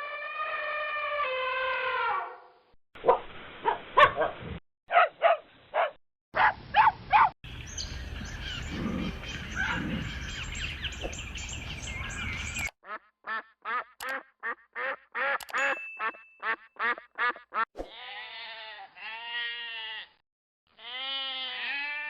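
A string of different animal calls in separate short clips: a family of elephants trumpeting, then small dogs barking in short sharp bursts, then other animal calls, with quick repeated bursts and, near the end, a series of arched pitched calls.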